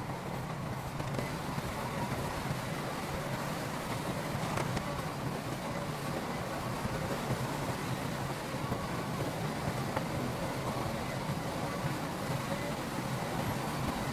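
Heavy construction machinery's diesel engine running steadily, a constant low hum with a few faint knocks.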